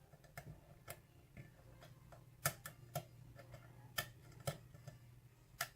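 Lock pick working the pins of a six-pin pin-tumbler lock with a Weiser keyway: faint, sharp clicks at irregular intervals, a few a second at most, as the pins are lifted and tested during single-pin picking.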